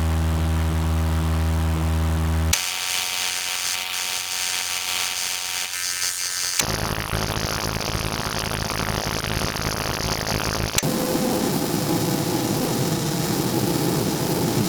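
Distorted electronic static loops playing in sequence, switching abruptly about every four seconds: a low, buzzing electrical hum, then a bright high hiss, then dense static across the whole range, then grainy noise with a faint steady tone.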